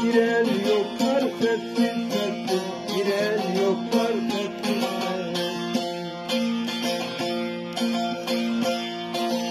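Bağlama (long-necked Turkish saz) played with quick plucked notes over steady ringing drone notes, a Turkish folk melody.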